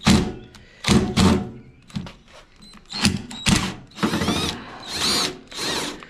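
Cordless drill-driver working a screw in the bottom panel of a washing machine, run in about six short trigger bursts, its motor whine rising and falling with each. The screw is stubborn and the driver bit is worn.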